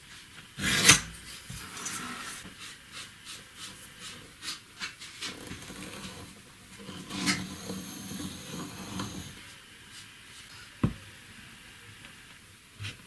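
Pencil scratching lines along a steel ruler on plywood in a run of short strokes, then a compass point and lead scraping a circle into the plywood. There is a loud clatter about a second in and a single sharp click near the end.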